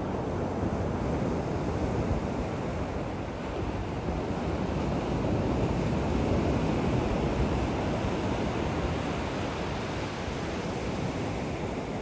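Ocean surf crashing on a beach: a continuous wash of breaking waves, swelling louder about halfway through as a large wave breaks.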